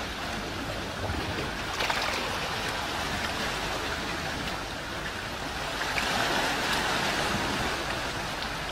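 Sea water washing and sloshing, heard as a steady rush of noise that grows louder about six seconds in.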